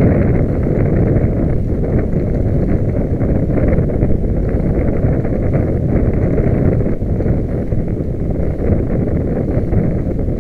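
Loud, steady low rumble of wind buffeting the microphone, fluttering unevenly, with no engine tone.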